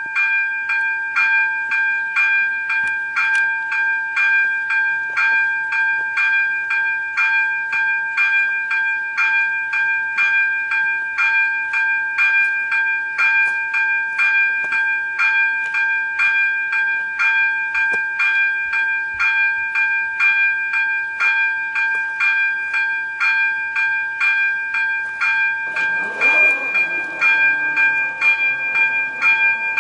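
Electronic warning bell of a Czech level crossing ringing in even strokes, about two a second, signalling an approaching train. Near the end a lower whine falling in pitch joins it as the barrier drives lower the booms.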